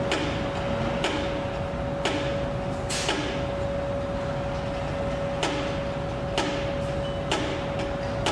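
Construction-site noise: sharp knocks about once a second, four, a pause of a couple of seconds, then four more, over a steady mid-pitched machine hum and a low rumble.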